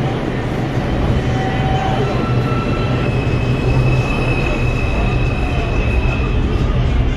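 NYC Subway R142 train pulling out along the platform, with a steady loud rumble of wheels on rail. Thin high wheel squeals ride over it through the middle, the longest from about three to six and a half seconds in.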